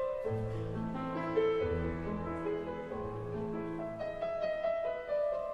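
Intro music: a piano-led keyboard tune with held notes over a slow bass line.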